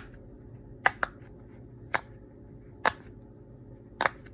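Silicone pop-it fidget being pressed on its loud side: about six sharp pops, roughly one a second, as single bubbles snap through.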